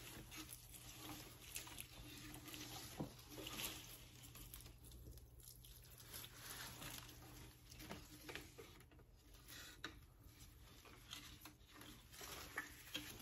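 Faint trickle and patter of water poured from a small plastic watering can onto a potted peace lily, with a few soft clicks.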